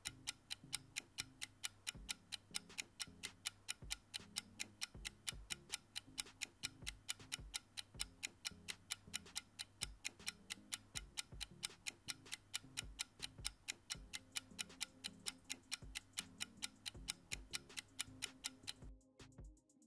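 Clock-style ticking sound effect for the answer countdown timer, a steady even tick over a soft music bed. The ticking stops about a second before the end.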